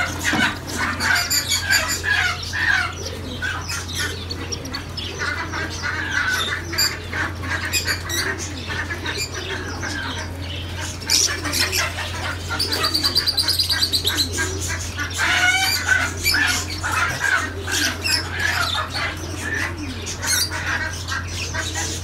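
A room of caged birds calling and chirping, with many short clicks and flutters, over a steady low hum. About halfway through there is a quick high trill lasting a second or so.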